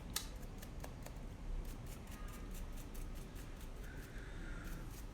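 Small hand tools handling the parts of an opened iPhone XS: a run of light, irregular clicks and scrapes of metal tips against the phone's small components.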